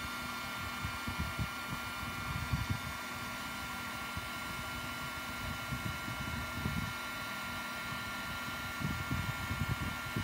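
Handheld heat gun running, blowing steadily with a fan whir and a thin steady whine, with irregular low rumbles and bumps coming and going.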